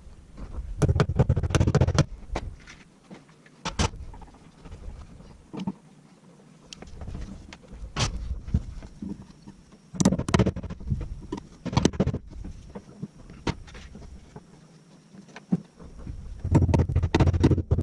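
Irregular bursts of knocks, clunks and rustling handling noises, with short quiet gaps between them.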